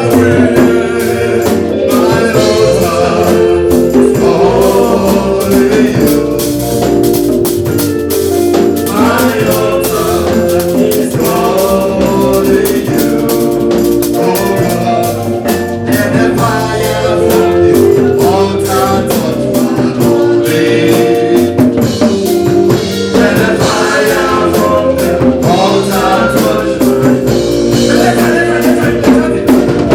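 Gospel praise music: singing over a drum kit and other instruments, with a steady beat.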